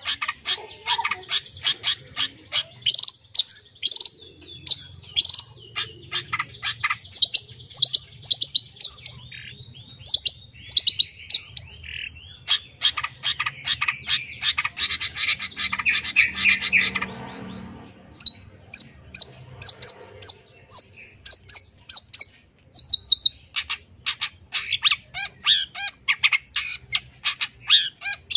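Long-tailed shrike (cendet) singing a long, varied song of rapid sharp chirps and whistled notes, with other birds' calls mimicked in it. There is a dense, scratchy run of notes about halfway through, then a short pause before quick repeated notes start again.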